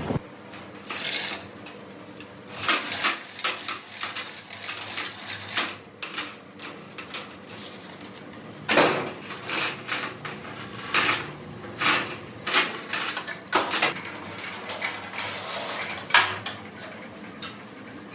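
Irregular metal-on-metal clanks and knocks, some sharp and ringing, as a metal workpiece and tools are handled and loaded on a manual lathe.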